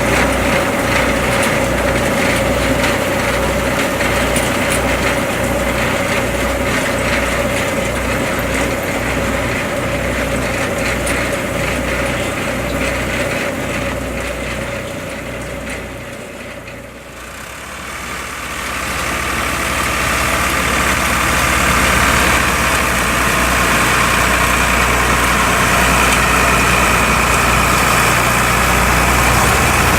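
Tractor engine running steadily under work. About halfway through, the sound dips briefly and comes back as a different, louder engine with a higher whine.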